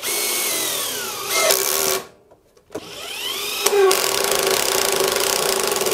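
Panasonic EZ1PD1 cordless impact driver, driving through its right-angle attachment, running a screw into an overhead wooden batten in two runs with a short stop about two seconds in. In the first run the motor's pitch falls as the screw takes load. The second run rises in pitch, then holds steady with a fast even rattle.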